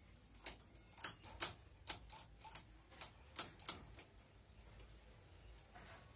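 Sharp, irregular metallic clicks from the needle bed of a domestic knitting machine as the needles are worked by hand with a small tool: about ten clicks over three seconds, then they stop.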